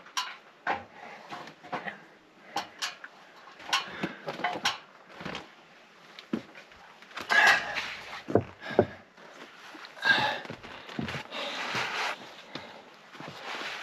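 Someone climbing a ladder: irregular knocks and clatter of hands and boots on the rungs, with heavy breathing from the exertion.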